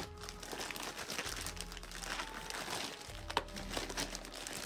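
Packaging being handled and pulled open: crinkling and rustling with scattered small clicks, over faint background music.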